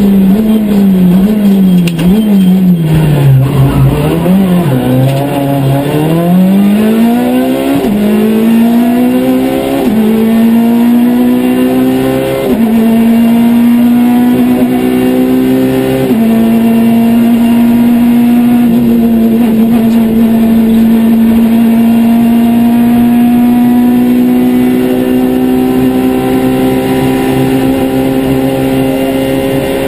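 Citroën C2 R2 Max rally car's engine heard from inside the cabin at stage pace: the note dips low for a slow corner, then the car accelerates hard through four quick upshifts, each dropping the pitch, and finishes with a long, steady climb in a high gear.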